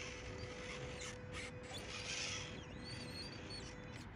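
Faint outdoor ambience with a steady low hum, and a short bird chirping about three seconds in.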